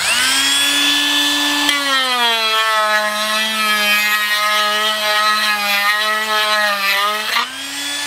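Dremel rotary tool with a sanding drum grinding out an opening in a golf cart dash panel. The motor whine drops in pitch about two seconds in as the drum bears on the panel, and rises again near the end as it comes off.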